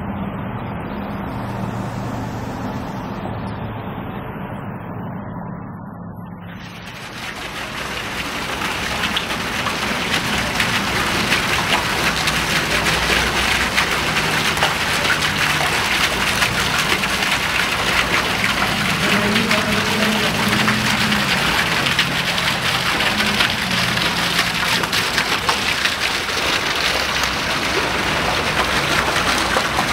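Dense crackling hiss like heavy rain or running water, swelling in about seven seconds in and then holding steady; before that, a low sustained drone with a softer hiss.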